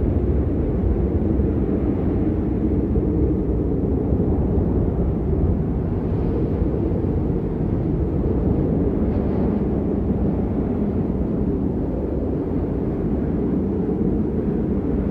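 Wind blowing steadily, a deep, even rumble with little high hiss.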